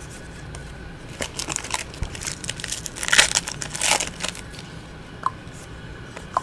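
Rustling and crinkling as a hand flips through a pack of 2009-10 Bowman 48 basketball trading cards, busiest in the middle, with a few light ticks near the end.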